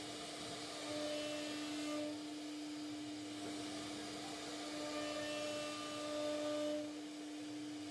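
CNC router spindle running with a steady whine over the hiss of cutting wood, the cutting noise swelling slightly twice.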